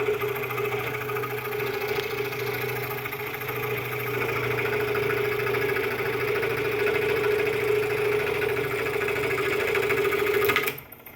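New Delta scroll saw running steadily at a slow speed with no wood being cut: a quiet, even motor-and-blade hum with a constant tone and no appreciable vibration. It cuts off suddenly near the end.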